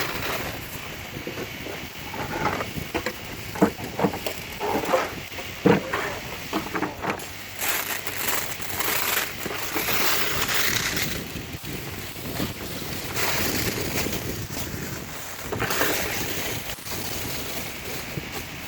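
Plastic wrapping on rolls of heavy wire being handled and pulled off, crinkling and rustling in swells, with a string of sharp knocks in the first few seconds and wind on the microphone.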